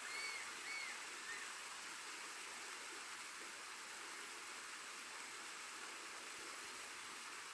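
Steady, even hiss with three short arching chirps in the first second and a half.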